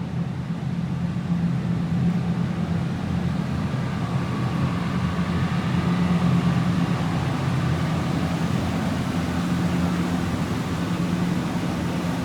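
Engine of a river garbage-collection boat running steadily, a low hum that holds an even pitch.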